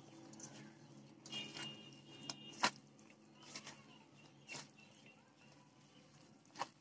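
Hand squishing and kneading grated raw potato mixed with egg and rice flour in a steel bowl: faint scattered squelches and clicks of the fingers working the mixture against the bowl.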